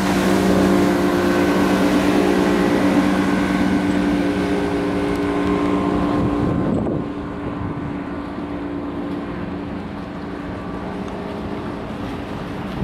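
Motorboat engine running steadily under way, with wind and water noise; about halfway through it eases off, dropping in pitch and level, and runs on quieter.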